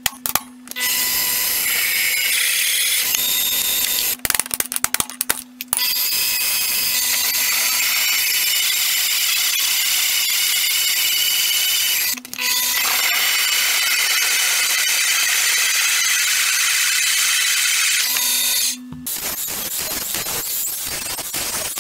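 Power tools working steel: a drill press running and drilling into metal, with a whine, going stop-start for a few seconds early and pausing briefly in the middle. Near the end it gives way to a quieter, steadier noise as an angle grinder cuts the steel arm of a car jack.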